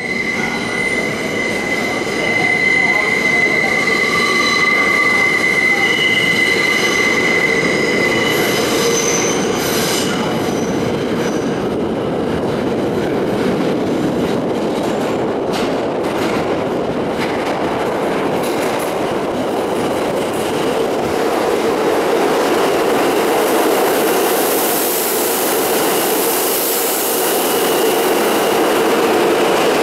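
An R160 subway train approaching through the tunnel and pulling into the station. A high, steady wheel squeal with several tones runs for the first eight seconds or so, then gives way to a growing rumble of the cars on the track, with a high hiss rising near the end as the train runs along the platform.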